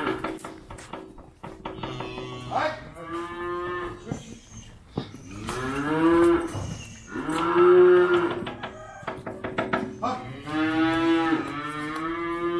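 Calves mooing while being herded: four long moos, the loudest a little past the middle.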